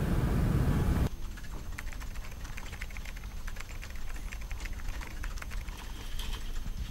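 A second of loud, steady low noise from the outdoor scene that cuts off suddenly, then quick, uneven clicking of typing on a laptop keyboard.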